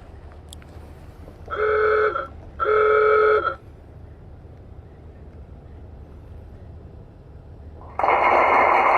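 Two loud, steady car-horn blasts from a Tesla's external Boombox speaker, each just under a second long and about a second apart. Near the end a loud rushing noise with no clear pitch starts and keeps going.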